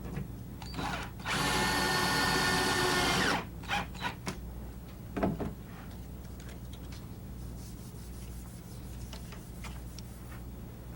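Power drill running for about two seconds with a steady pitched whine, followed by a few short knocks, as hardware is fastened to secure furniture to a wall.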